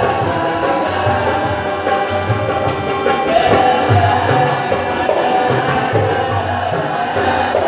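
Live folk-dance accompaniment: a group of boys singing together, with tabla beats and a light high stroke keeping time about twice a second.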